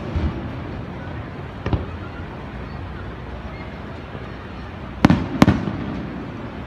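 Aerial firework shells bursting: a faint bang about two seconds in, then two loud booms in quick succession near the end, each trailing off in a low rumble.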